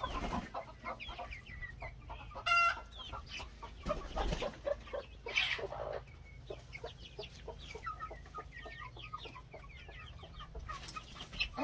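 Young chickens peeping and clucking, many short chirps overlapping throughout. One louder, sharper call stands out about two and a half seconds in.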